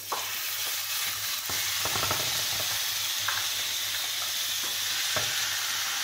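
Marinated beef bulgogi with sliced onion and carrot sizzling steadily in an oiled non-stick frying pan, the sizzle starting as the meat goes in, with a few light knocks as it is spread out by hand.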